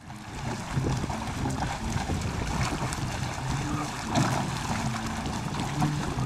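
Wind buffeting the microphone over water splashing and sloshing around a metal rowboat as a swimmer climbs back aboard.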